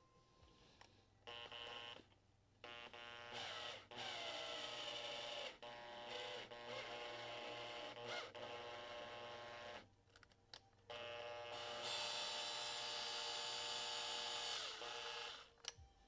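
Makita cordless drill driving a starting tap into a drilled hole, its motor whining in four runs of one to four seconds with short pauses between trigger pulls. In places the pitch sags as the tap takes load.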